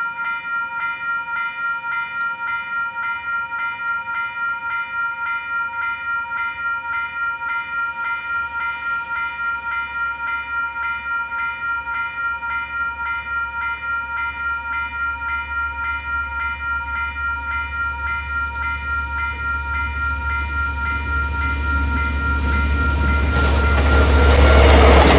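Level crossing alarm bell ringing steadily at about two to three strokes a second. Beneath it, the rumble of a KiwiRail DL-class diesel-electric locomotive grows louder as it approaches, until the locomotive's noise swamps the bell in the last second or two as it reaches the crossing.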